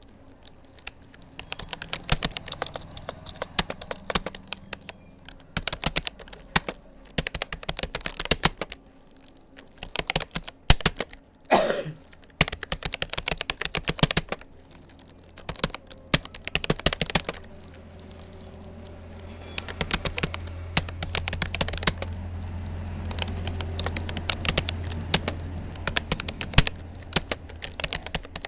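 Typing on a Rapoo computer keyboard: rapid runs of key clicks in bursts, broken by short pauses. About twelve seconds in there is one brief sound that falls in pitch, and a low hum grows louder in the background during the second half.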